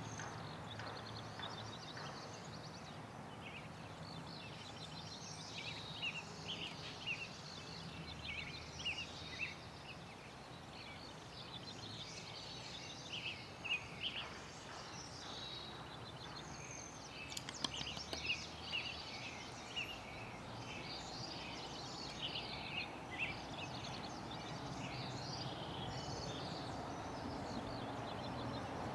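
Several birds chirping and singing in quick short notes over a steady low background rumble, with a few sharp clicks a little past the middle.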